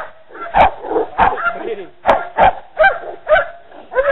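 Hog-hunting dogs barking repeatedly, about two barks a second, as they bay a wild hog held up in brush.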